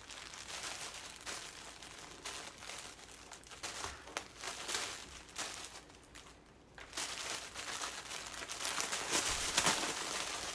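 Tissue paper rustling and crinkling as it is unwrapped by hand, with a quieter pause a little past halfway and louder crinkling near the end.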